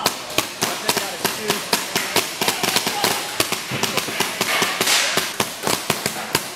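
Several paintball guns firing in quick, uneven succession: sharp pops, a few every second, with shots from different guns overlapping.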